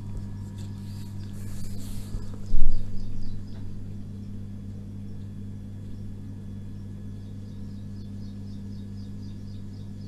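A steady low hum, with one loud dull thump about two and a half seconds in and a smaller one just after. Faint high-pitched chirps repeat in the background for several seconds.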